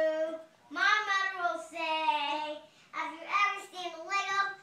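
A child singing in a high voice, with long held notes in three phrases separated by short breaths.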